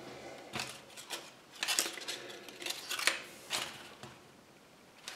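Folded paper instruction leaflet crinkling and rustling as it is unfolded and handled, in several short bursts that die down near the end.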